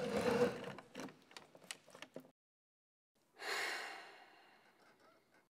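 A young woman's breathing: a breath with small clicks and rustles in the first two seconds, then one long, deep exhale about three seconds in that fades away, a nervous sigh to steady herself before playing the piano.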